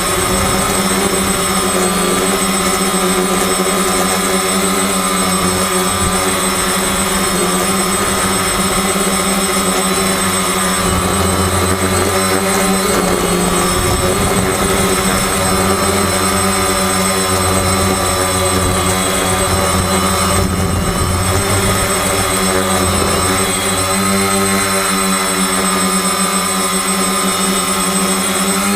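FPV racing drone's electric motors and propellers whining steadily, the pitch drifting up and down as the throttle changes.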